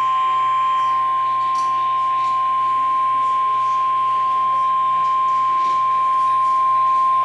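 Emergency Alert System attention signal: a single steady tone just above 1 kHz, held unbroken apart from a brief dropout near the end. It announces the broadcast of a new weather warning.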